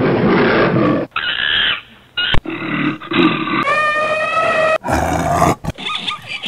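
A string of about six short animal sound effects played back to back, each starting and stopping sharply: a roar, then other animal calls, one of them a long pitched call about four seconds in.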